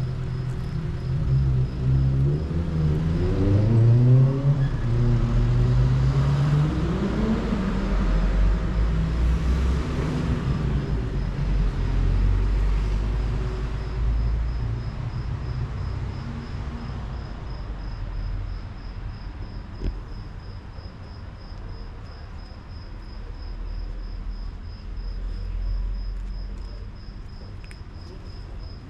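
A motor vehicle driving past, its engine pitch rising as it speeds up, loudest in the first third and fading away over the second half. A faint, steady, high-pitched chirping, like a cricket, pulses throughout.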